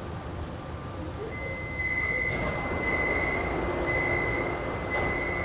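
Metro door-opening warning beeps: a high beep sounding about once a second, four times, while the sliding doors of the Kaohsiung MRT car slide open over the hum of the stopped train.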